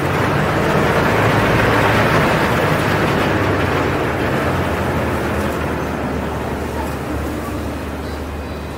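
Boat engine idling with a steady low hum, under a broad rushing noise that swells over the first couple of seconds and then slowly fades.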